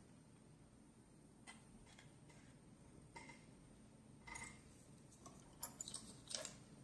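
Faint, scattered small clicks and taps of Dunhill Rollagas lighter parts being handled and fitted, about half a dozen of them, a little louder in the second half.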